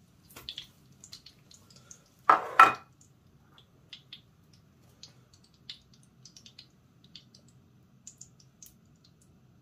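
A china plate set down on a kitchen counter with a loud double clink about two seconds in. Faint scattered ticks and small knocks of kitchen handling run on around it over a low steady hum.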